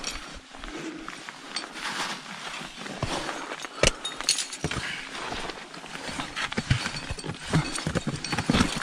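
A climber's steps on granite blocks and snow: boots scraping and knocking on rock in an irregular run, with a sharp click about four seconds in.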